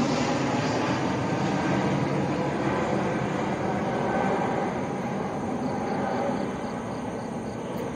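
Airplane passing overhead, a steady engine drone and rush of air that slowly fades as it flies away.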